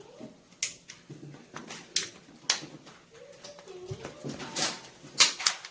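Thin aluminium can metal being bent and crimped with multi-tool pliers: scattered sharp clicks and crinkles, the loudest a little after five seconds in.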